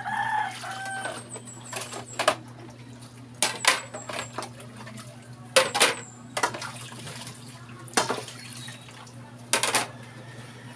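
Plates being soaped and handled at a sink, clattering sharply against each other and the counter every second or two over a steady low hum.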